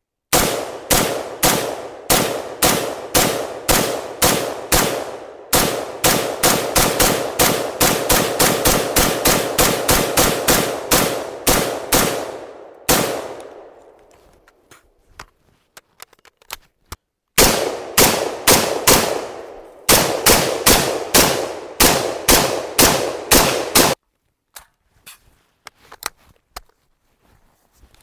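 Strings of semi-automatic gunshots fired in quick succession, each shot ringing out. The first string runs about two shots a second, then speeds up to three or four a second and stops. After a pause of about four seconds, a second string at about two shots a second cuts off sharply, leaving a few faint clicks.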